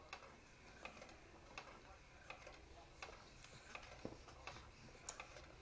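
Near silence with a dozen or so faint, short clicks at uneven intervals.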